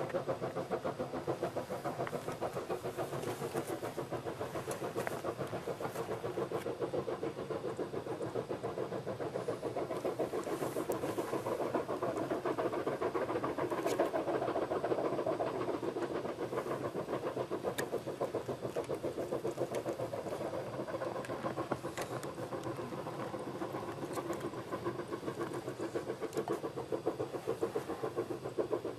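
Chinese QJ-class 2-10-2 steam locomotive working a train, its exhaust chuffing in a fast, even rhythm that carries on without a break.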